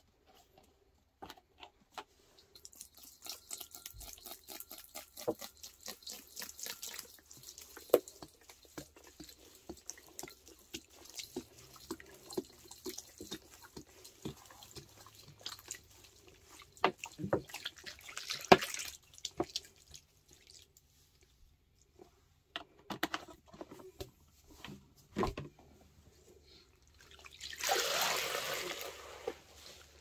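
Green pine multipurpose cleaner poured from its bottle over a sponge in a metal bowl: a steady trickle and splash of liquid with many small popping bubbles. Near the end comes a louder rush of sloshing as the soaked, sudsy sponge is worked in the bowl.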